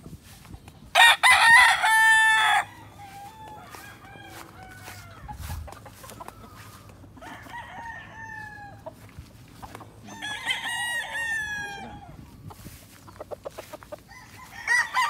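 Roosters crowing one after another: a loud, close crow about a second in, fainter crows from farther birds through the middle, and another loud crow starting near the end.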